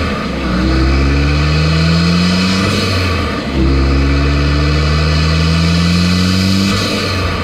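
Mazdaspeed6's 2.3-litre turbocharged four-cylinder engine under hard acceleration: its pitch climbs steadily, drops suddenly at a gear change about three and a half seconds in, then climbs again and drops at another shift near the end.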